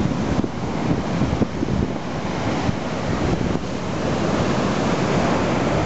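Rough storm sea surging and breaking against a harbour wall, with strong wind buffeting the microphone as a low, uneven rumble.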